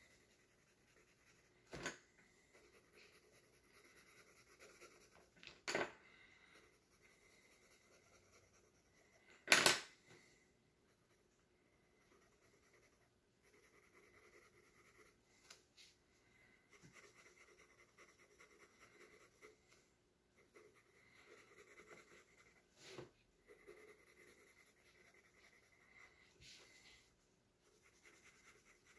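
Coloured pencil shading on sketchbook paper: faint scratchy strokes that come and go in short stretches. Four short knocks stand out, the loudest about ten seconds in.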